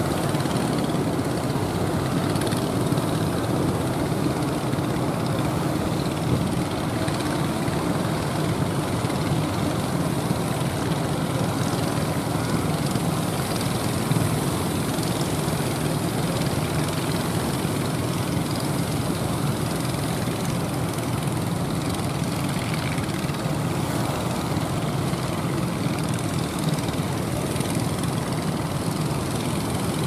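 Motors of several outrigger fishing boats running steadily as the boats push out through breaking waves, mixed with the constant wash of surf.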